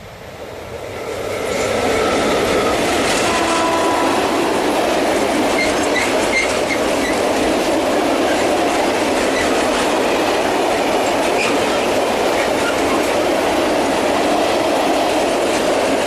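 ET41 twin-section electric locomotive passing, followed by a long freight train of loaded open coal wagons rolling by. The sound swells quickly over the first two seconds as the locomotive arrives, then holds as a loud, steady rumble of wagon wheels on rail, with a few short high tones near the start.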